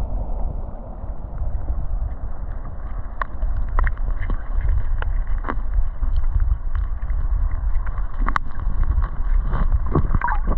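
Wind buffeting the microphone outdoors by a river: a steady, uneven low rumble, with a handful of sharp clicks, the loudest about eight seconds in.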